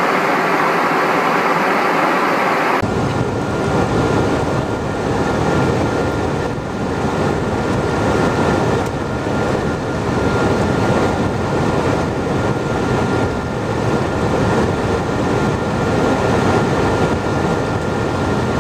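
Steady cabin noise in a Cessna Citation Encore jet's cockpit: the rush of airflow and turbofan engine noise, with a faint steady whine. About three seconds in, the sound changes abruptly to a fuller, lower rumble.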